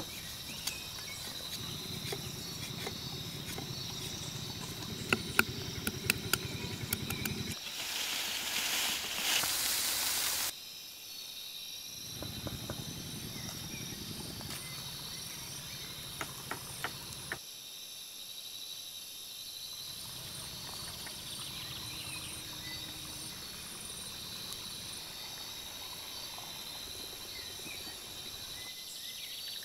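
Steady chorus of insects chirring, with scattered sharp clicks and, about a third of the way in, a few seconds of loud harsh scraping hiss that stops abruptly.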